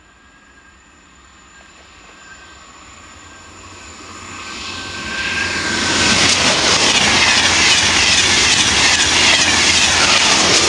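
TGV Duplex double-deck high-speed train approaching and passing at speed. A rush of wheel and air noise builds over several seconds, then is loud and steady from about six seconds in as the cars go by.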